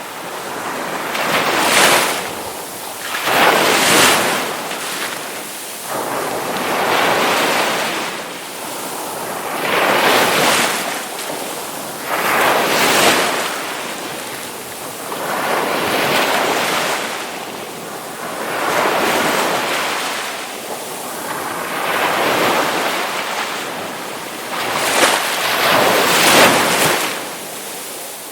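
Ocean waves breaking and washing ashore, a rushing surf that swells and ebbs again every two to four seconds.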